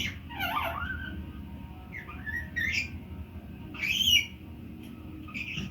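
Pet pionus parrot giving short whistled calls that glide up and down, about four of them, the loudest about four seconds in.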